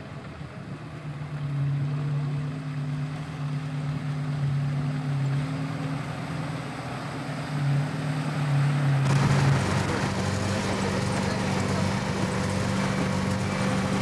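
UAZ off-roader's engine running steadily as it drives through a river ford, water splashing around its wheels. About nine seconds in the sound cuts to inside the moving cab: the engine's steady drone under a louder rush of water against the body.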